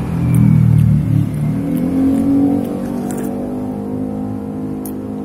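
A motor vehicle's engine running close by, loudest in the first two or three seconds and then slowly fading away.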